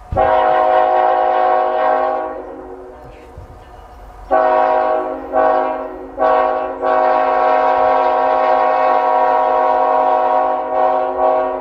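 Locomotive air horn sounding a chord of several notes. It gives one long blast, then after a pause a few short blasts that run into a long held blast near the end, as the train approaches.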